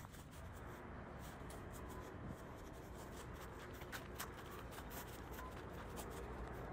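Faint rustling of grass and brush as a person walks through vegetation, with many irregular short clicks and scrapes.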